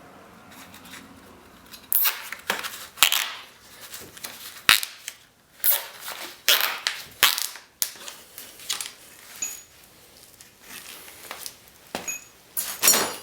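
Handling noise: an irregular run of sharp clicks and knocks with scratchy rustling, as small parts are worked by hand around the winch hook and bumper. The clicks come thickest in the first half, thin out, then pick up again near the end.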